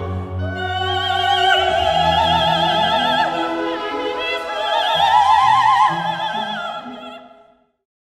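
Operatic singing with a wide vibrato over an orchestral accompaniment, fading out to silence near the end.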